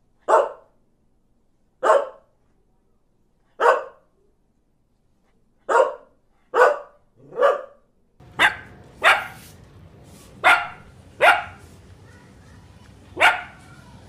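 A dog barking in separate single barks, one to two seconds apart at first, then closer together. About eight seconds in, a steady hiss comes in behind the barks.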